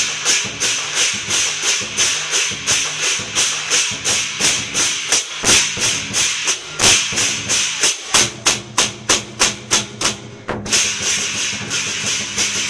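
Lion dance percussion: drum with clashing cymbals beating out a steady, driving rhythm that quickens past the middle, then a couple of seconds of continuous cymbal clashing near the end.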